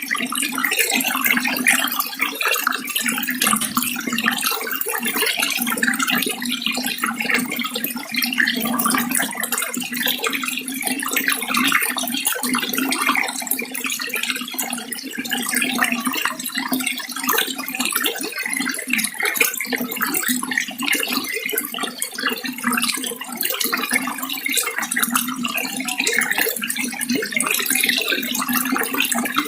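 Water running and splashing steadily, a continuous wash of fine trickles and splashes with a constant low rush under it.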